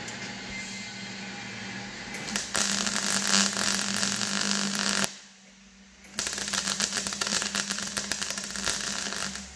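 MIG welder crackling as it welds the sheet steel of a car body, in two runs of about three seconds each with a short break between. A steady low hum comes before the first run.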